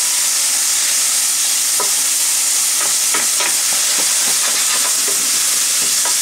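Chopped shallot, ginger, peppers and jalapeño sizzling steadily in hot olive oil in a stainless steel pan. A wooden spoon scrapes and stirs through them a few times.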